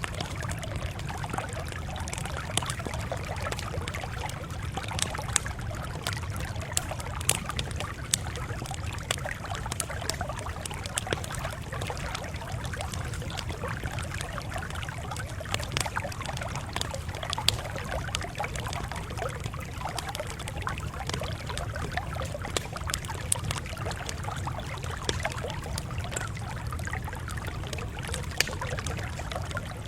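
Campfire crackling: frequent small, irregular snaps and pops over a steady low rumble.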